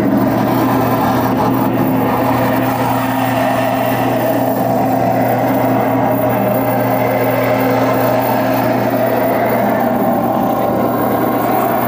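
Live noise-drone performance: a loud, unbroken wall of dense, distorted sound over a steady low hum, with a held mid tone that drops away about two-thirds of the way through.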